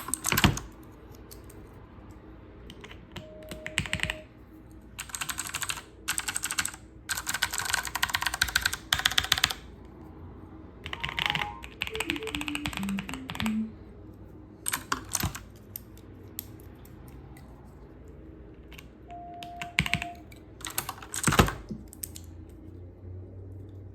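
Mechanical keyboard being typed on: two fast runs of keystrokes, then shorter clusters and single key presses with pauses between.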